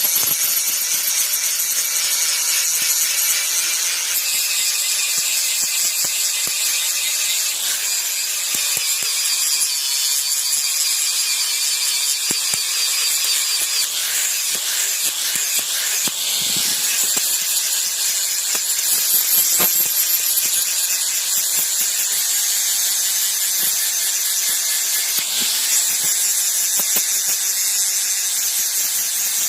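Electric grinder working iron: a continuous high-pitched whine and hiss with small scattered clicks.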